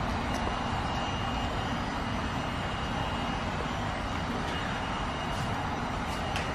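Steady mechanical drone and whoosh with a thin high whine running through it, like a motor or fan running; a few faint clicks near the end.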